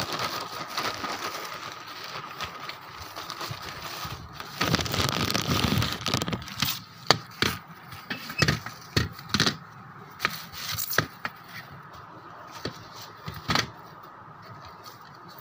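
Plastic bag and foam packing wrap crinkling and rustling as a part is unwrapped by hand, with scattered sharp clicks and light knocks of handling. The rustling is loudest about four to six seconds in.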